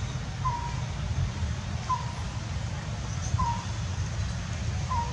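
A bird calling a short, slightly falling note about every second and a half, over a steady low rumble.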